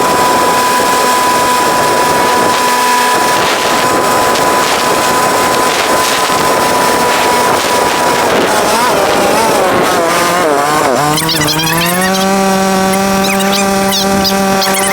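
Can-Am 700 XMR ATV engine running under way at a steady pitch, which wavers in the middle as the throttle changes and then steps up about eleven seconds in and holds.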